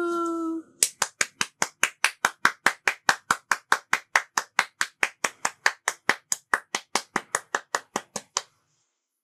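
Hand clapping in a steady, even rhythm of about five claps a second, given as applause. The claps stop about a second before the end.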